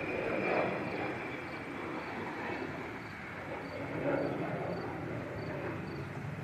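Jet airliner engine noise: a steady rumble, with a high whine that fades out about a second in.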